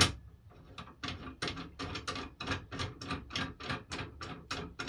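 A sharp click, then a quick, even run of small clicks, about five a second, as a small rod is worked into its fitting on a sliding miter saw.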